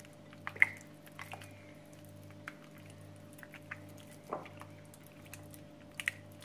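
A hand squeezing soft margarine into oil, lemon juice and egg yolk in a glass bowl: faint, irregular wet squelches and small clicks, the sharpest less than a second in, over a steady low hum.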